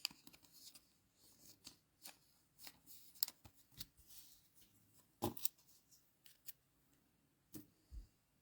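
Dragon Ball Z trading cards being handled and flipped through: a scattered run of faint light clicks and rustles of card stock, the loudest a little past the middle.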